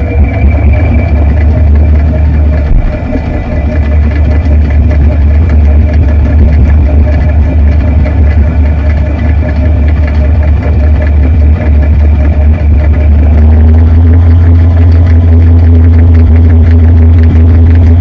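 Washing machine running, heard from inside the drum: a loud, steady low hum of the motor and drum with faint higher whines. About two-thirds of the way through, the hum takes on a new, steadier tone as the machine changes speed.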